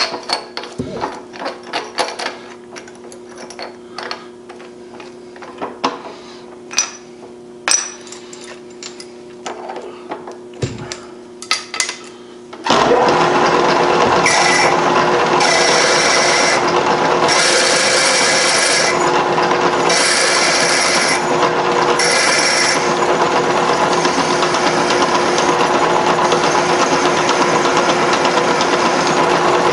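Clicks and knocks of a drill chuck being tightened and tools handled; then, about halfway through, the vertical milling machine's spindle starts and runs steadily while a 5/16-inch twist drill is fed into the metal part in four short pecks, each adding a higher-pitched cutting sound.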